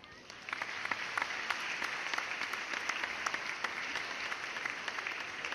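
Applause: many hands clapping at once, starting about half a second in and going on steadily.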